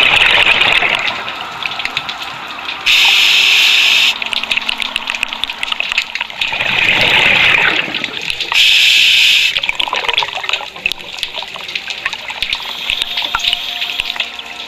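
Scuba regulator breathing recorded underwater: two hissing inhalations through the demand valve, about three and about nine seconds in, each roughly a second long, alternating with rushing, bubbling exhalations at the start and again around six to eight seconds in.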